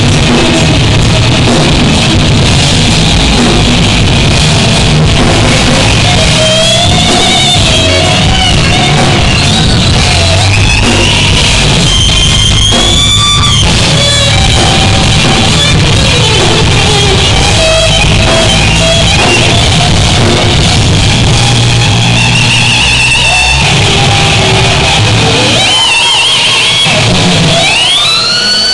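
Heavy metal band playing live at full volume: a distorted lead guitar plays bent, wavering single notes with a few sweeping pitch glides, over drums, bass and rhythm guitar.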